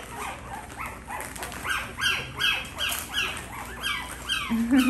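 Newborn puppies crying: a string of short, high-pitched, falling squeals, about two a second. They are hungry and crying for their mothers.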